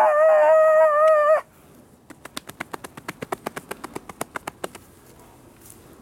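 A person's voice holding one long, loud wail at a steady pitch, which breaks off after about a second and a half. About two seconds in comes a quick run of sharp slaps, about eight a second for nearly three seconds: hands beating on the chest, gorilla-style.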